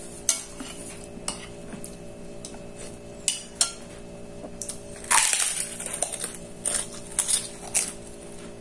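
Metal spoon clinking and scraping against a ceramic plate while eating, in sharp separate clicks, with a louder, longer crunch about five seconds in.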